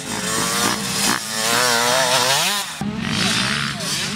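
Small motocross bike engine revving, its pitch wavering up and down as the throttle is worked. About two-thirds through, the sound changes abruptly to a lower, steadier engine note.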